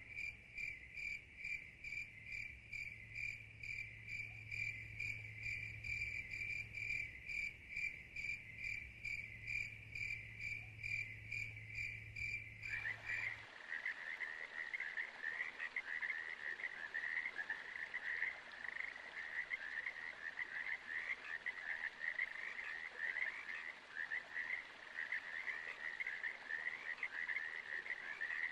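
Frogs calling at a pond. First a single evenly repeated high call, about two a second. About halfway it changes to a denser chorus of overlapping trilling calls.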